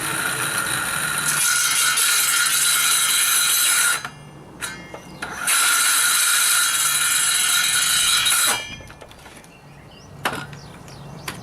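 Circular saw ripping rough-cut red oak lengthways, with a steady high whine, in two runs of about four and three seconds with a short pause between. The blade is dull, which the owner calls dead.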